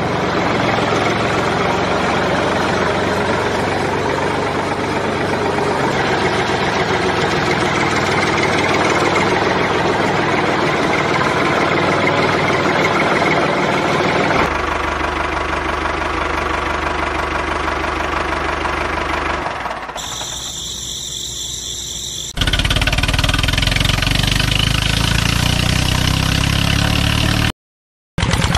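Steady engine-like running noise that changes abruptly at several edits, dipping quieter for a couple of seconds and cutting out completely for a moment near the end.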